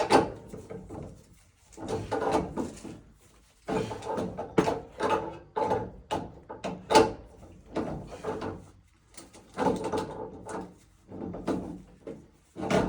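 A wrench turning threaded gas-pipe fittings on a sediment trap: a run of short scraping, creaking strokes with brief pauses between them, as the fittings and cap are tightened down to seal against gas leaks.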